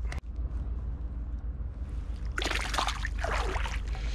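Water sloshing and trickling beside an inflatable kayak, with a run of splashing from about two and a half seconds in as a paddle dips into the water. A short knock at the very start.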